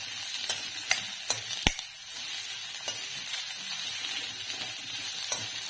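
Sliced onion, capsicum and carrot sizzling in a hot iron kadhai on full flame, with a steel spatula stirring and clinking against the pan several times. The loudest clink comes a little under two seconds in.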